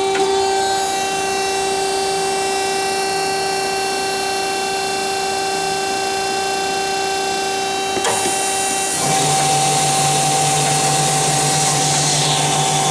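Do-All TF-2021NC automatic vertical bandsaw running with a steady whine. There is a click at the start and another about eight seconds in, and about a second later the machine gets louder, with a lower hum joining in.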